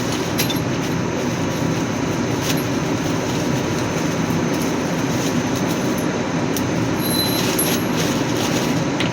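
Steady mechanical running noise, with a few light clicks and knocks over it.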